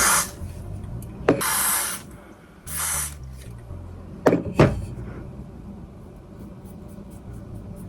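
Two short hisses from a spray of hair product being applied to the wig, followed by two sharp taps.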